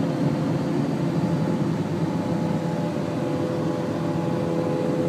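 Steady road and engine noise inside a car cruising at highway speed, with a faint steady hum running through it.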